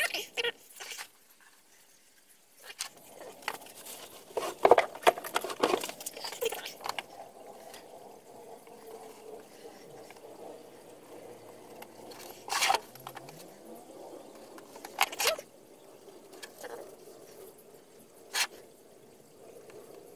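Scattered knocks and rustles of handling at a wooden workbench, then a craft knife cutting a paper stencil on a cutting mat, with a few sharp single clicks. A faint steady hum runs underneath.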